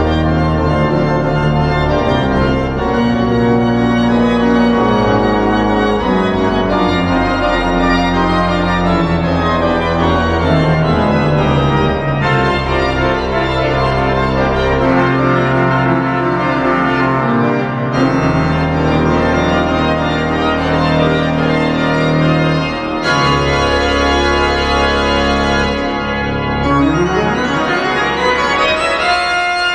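Church pipe organ playing full sustained chords over deep pedal notes. A fast upward run of notes comes near the end.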